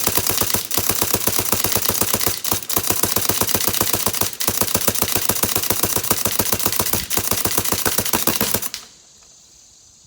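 Inception Designs Predator paintball marker firing rapidly in long strings of shots, with a few brief breaks, until the firing stops near the end.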